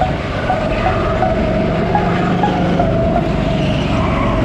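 Go-kart motor running at speed, a steady high tone whose pitch jumps up briefly several times and settles back, over constant road and tyre noise.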